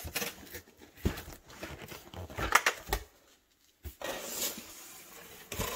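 A cardboard product box being handled and turned over on a countertop: several sharp knocks and cardboard rustles, with a brief quiet pause a little past halfway.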